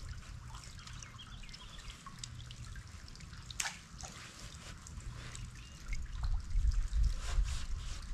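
Water dripping and trickling in small scattered drips, with one sharper click a little past halfway, over a low rumble that grows louder near the end.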